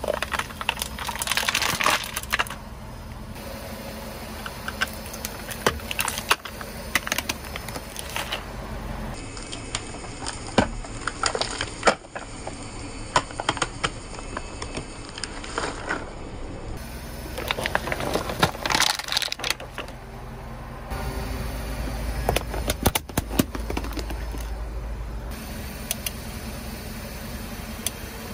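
Brittle objects cracking and crunching under a car's tyres: many sharp cracks and crackles, some in dense clusters, over a low steady rumble.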